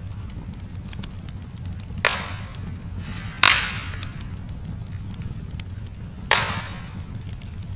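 Wood fire crackling in a fireplace: scattered small ticks over a low steady rumble, with three loud pops about two, three and a half and six seconds in, each trailing off quickly.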